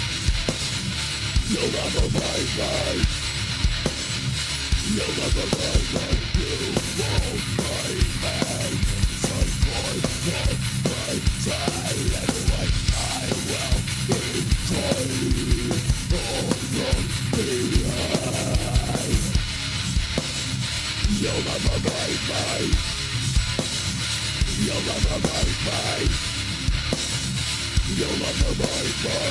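Heavy metal music: distorted electric guitars over fast, dense drumming, with no vocals.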